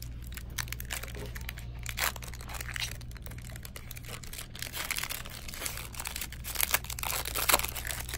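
Foil wrapper of a Panini Absolute Football trading-card pack crinkling and tearing as it is pulled open by hand, in many small crackles that get busier and louder in the second half. A steady low hum runs underneath.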